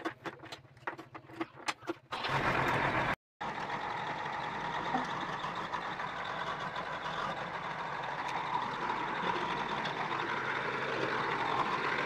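JCB backhoe loader's diesel engine cranked on the key, starting and catching about two seconds in. After a sudden break it runs steadily, with no pause, as the loader drives.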